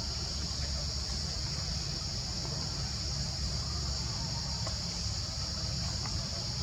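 Steady, unbroken high-pitched chorus of insects, with a low rumble underneath and a few faint ticks.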